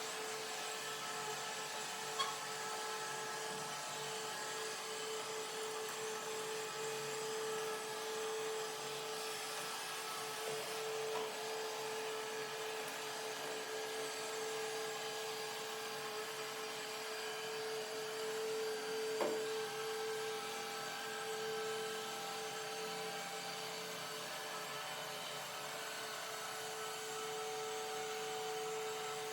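Ecovacs Deebot N8 Pro robot vacuum running: a steady motor hum with a constant whine over a soft rushing noise, and a faint click about two seconds in and another a little after nineteen seconds.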